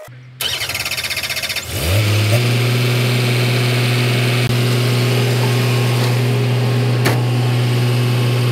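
Excavator's diesel engine being started: the starter cranks it with a rapid, even pulsing for over a second. About two seconds in it catches, rises in pitch and settles into a steady idle.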